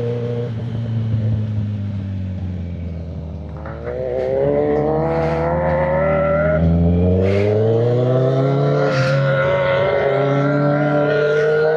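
Sportbike's inline-four engine on the move: the revs fall away over the first few seconds, then climb steadily under acceleration from about four seconds in and settle to a steady cruise near the end.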